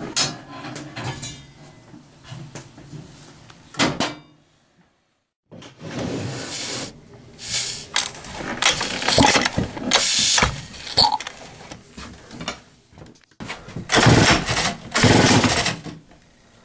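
Remington SL-11A chainsaw's 65.5 cc single-cylinder two-stroke being pull-started over and over. The starter and engine go in short loud bursts, about a second each and loudest near the end, without settling into a steady run.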